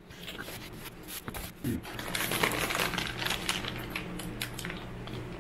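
Packaging being handled as a new diesel fuel injector is unpacked: a cardboard box is opened and a clear plastic bag crinkles, with a run of small clicks and rustles that thickens about two seconds in, over a faint steady hum.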